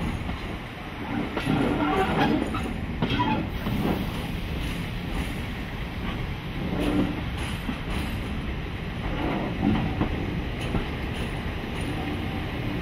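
Railway coach rolling slowly over jointed track and pointwork, its wheels clicking and knocking irregularly over the rail joints under a steady running rumble.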